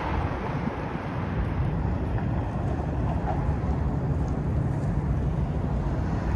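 Low, steady rumble of city traffic, growing a little louder after about a second.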